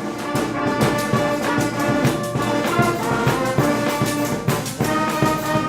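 A wind band playing, brass to the fore, with percussion keeping a steady beat.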